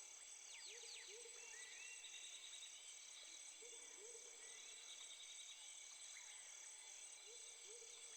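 Faint natural ambience: insects trill steadily with a high pulsing buzz, while small birds give soft chirps and whistles. A short low call comes in pairs every few seconds.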